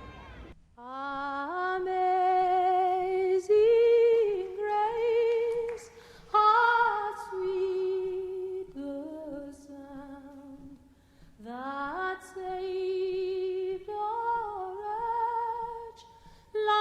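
Background music: a woman singing slow, held notes with vibrato, in phrases that break off briefly about ten seconds in before the singing resumes.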